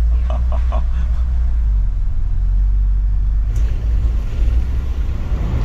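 Steady low rumble of engine and road noise inside the cab of a small camper van driving along a country road.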